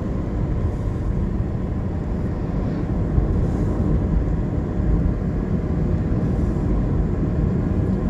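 Steady low rumble of a moving car heard from inside the cabin: tyre and engine noise while driving along a road.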